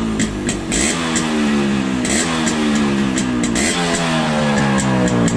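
Yamaha RX100's two-stroke single-cylinder engine being revved again and again, its pitch dipping and climbing with each throttle blip.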